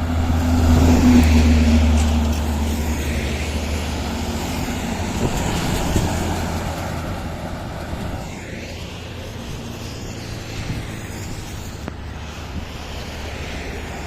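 A bus passing close by with a low engine rumble, loudest about a second in and then fading, followed by steady road traffic noise.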